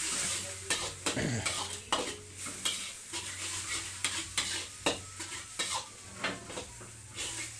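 Egg noodles being stir-fried in a pan: a cooking utensil clacks and scrapes against the pan in irregular strokes over a light sizzle.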